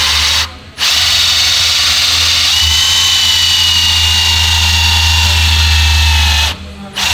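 Cordless drill driving a hole saw through a wooden board, running steadily with a high whine that sinks slightly in pitch. It stops briefly about half a second in and again shortly before the end.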